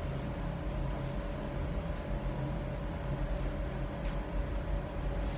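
Steady low room hum with faint steady tones, from ventilation or equipment running in the hall, and a faint tick about four seconds in.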